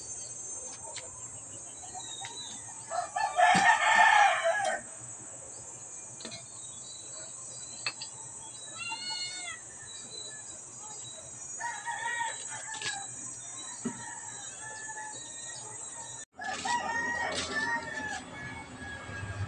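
A rooster crowing once, loud, about three seconds in, followed by shorter, softer chicken calls.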